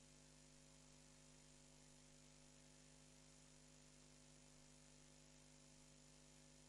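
Near silence: a faint, steady electrical hum with hiss, unchanging throughout.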